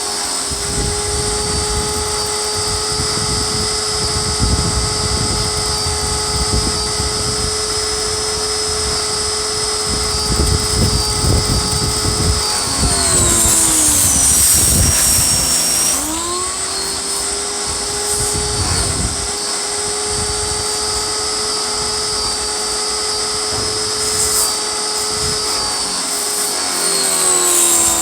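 Pressure washer running, a steady motor whine with the hiss and spatter of the water spray. The whine sags in pitch and picks back up about halfway through, then sags again near the end.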